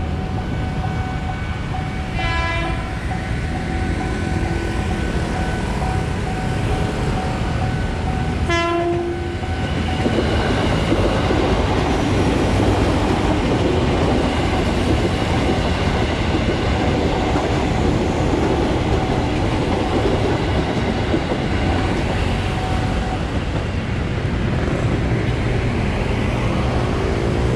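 KRL commuter electric train, an ex-JR 205 series unit, gives two short horn blasts about six seconds apart. It then runs through the level crossing with a steady rumble and wheel clatter for about fifteen seconds.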